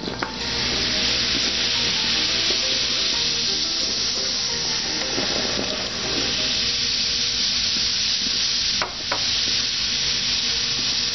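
White vinegar poured onto baking soda in a stainless steel sink drain, fizzing and foaming with a steady hiss as the two react, with a short dip about nine seconds in.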